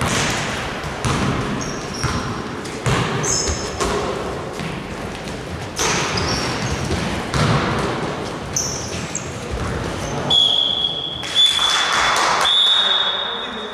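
Basketball game play in a gym: a ball bouncing on the court with repeated thuds, and short high squeaks throughout. About ten seconds in comes a long, steady, shrill tone that breaks twice, over faint voices in the hall.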